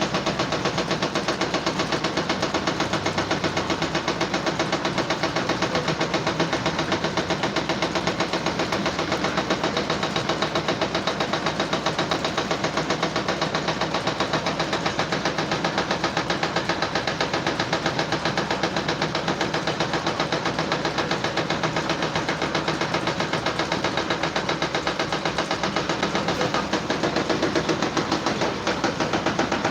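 A machine running steadily with a fast, even pulse, like an engine idling.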